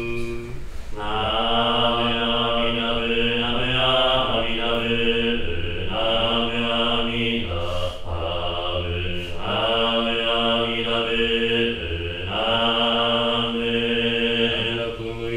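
Jōdo Shinshū shōmyō chanting in the slow nitō style: a man's voice draws out long, slowly gliding notes, with short breath pauses every few seconds.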